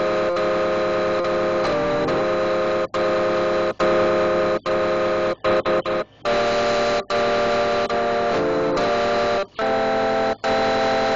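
Buzzy electronic music: steady synthesizer-like notes that change pitch every half second or so, broken several times by sudden short gaps of silence.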